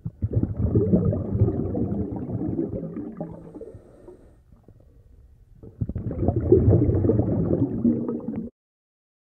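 Water bubbling and gurgling in two stretches, the first fading out about halfway through, the second starting a second later and cutting off abruptly near the end.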